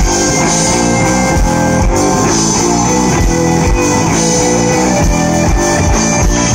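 Live rock band playing loudly: electric guitars, bass guitar and drums, with a repeating kick-drum beat under the guitars.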